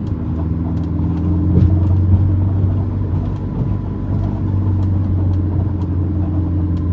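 Ferrari 488 driving over an uneven road: a steady low drone of engine and road noise, with faint, short, irregular squeaks (a 'ji ji' chirp) from the front shock absorbers. The squeak comes from the dampers' oil seals rubbing on the shaft.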